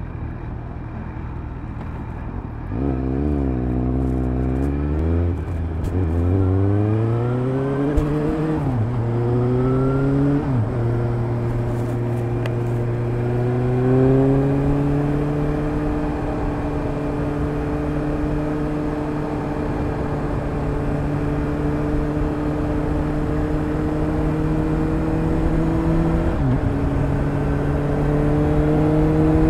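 Suzuki GSR750's 749 cc inline-four running through a Fuel Diablo stainless MicroMini aftermarket exhaust with the dB-killer fitted. It idles, then pulls away, revving up through the lower gears with three or four quick upshifts. It then cruises at nearly steady revs, with one brief dip near the end.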